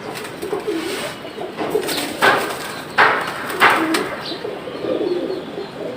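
Domestic pigeons cooing in low, repeated wavering calls, with three short rushes of noise about two, three and three and a half seconds in.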